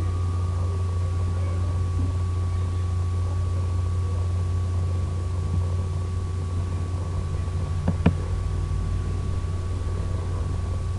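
Steady low machine hum with a faint high whine over it, and two short clicks about eight seconds in.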